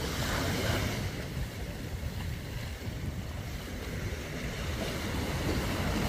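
Small sea waves breaking and washing up a sandy beach in a steady wash of surf, swelling at the start and again near the end.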